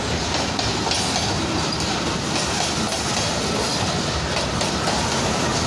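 Freight train of covered hopper wagons rolling past at speed close by: a steady rumble of wheels on rails with repeated clatter as the wheels cross the rail joints.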